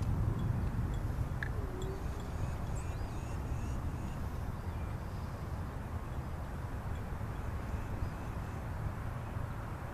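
Outdoor background: a steady low rumble, with a few faint short high chirps.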